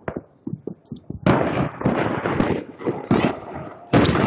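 Fireworks going off: a few sharp separate pops, then from about a second in a dense run of rapid crackling bangs, with another loud burst near the end.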